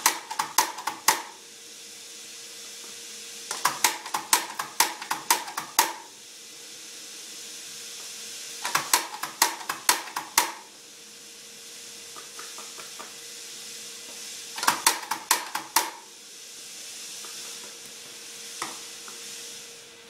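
Doser lever of a dosage-chamber coffee grinder being flicked over and over, each pull snapping back with a sharp clack, in four quick runs of clicks, as the chamber is emptied of ground coffee.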